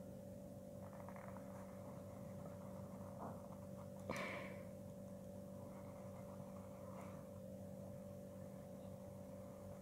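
Faint scratching of a pen drawing a line on paper, with one short, sharper tick about four seconds in, over a steady low hum.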